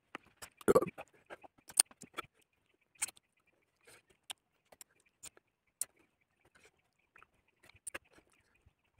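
Close-up mouth sounds of a person eating boiled fish by hand: wet smacks and clicks of chewing, spread out irregularly, with one louder low thump just under a second in.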